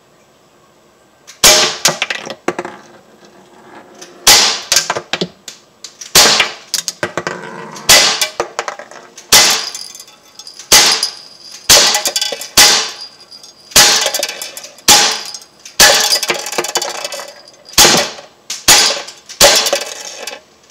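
Umarex Glock 19 Gen 3 CO2 BB pistol (non-blowback) firing steel BBs in steady succession, about one shot a second, fifteen or so in all. Each sharp shot is followed by the BB striking the target trap.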